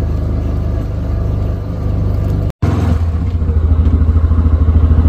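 Off-road utility vehicle engine running steadily close by, with a fast even pulsing beat. The sound drops out for an instant about halfway through and comes back a little louder.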